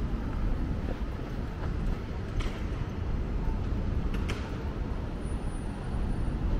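City street traffic: a steady low rumble of road vehicles, with two brief hisses about two and four seconds in.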